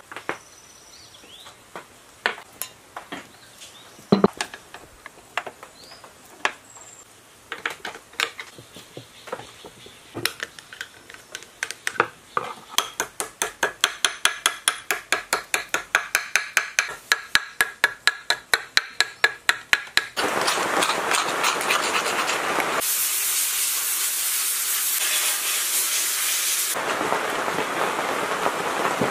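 Hand tools clicking and knocking on the cast-iron gearbox of an old metal lathe as it is taken apart. About twelve seconds in, this builds into a fast, even run of metal strikes, three or four a second. After about twenty seconds a steady hiss takes over, louder for a few seconds in the middle.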